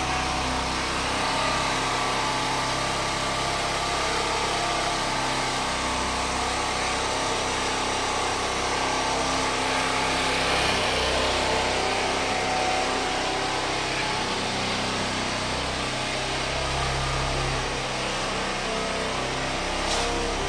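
A small engine running steadily, a continuous mechanical drone, with a sharp tap right at the end.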